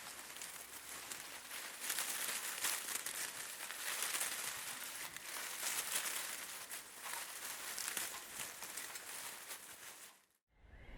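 Tree leaves and branches rustling in gusting wind: a dense, crackly rustle that swells and eases in gusts, then fades out near the end.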